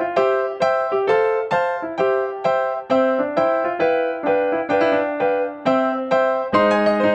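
Background music: a bright keyboard piece with notes struck about twice a second, a fuller, lower chord joining near the end.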